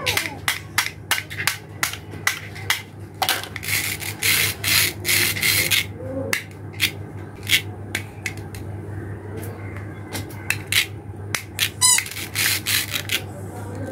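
Hard plastic toy fruit halves handled and knocked together: a run of clicks and taps, with longer rasping rubs about four to six seconds in.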